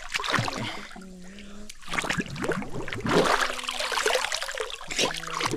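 Water splashing and trickling in a shallow creek, with many short sharp splashes close together.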